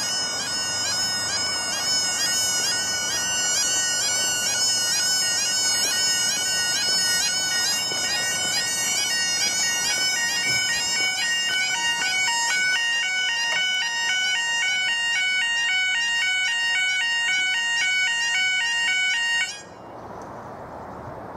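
Two old yodalarms on a level crossing sounding together, an incredibly loud repeating warble, with one of them skipping. They cut off suddenly near the end, leaving only faint outdoor background.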